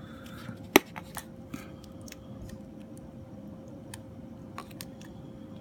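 Small clicks and taps of tools and tiny parts being handled while an iPhone 5 is put back together, with one sharp click a little under a second in. A faint steady hum lies underneath.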